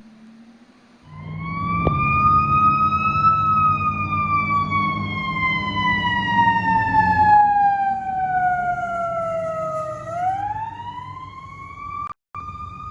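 Emergency vehicle siren wailing. It comes in about a second in, rises briefly, falls slowly for several seconds, then winds up again near the end, over a low rumble that stops partway through.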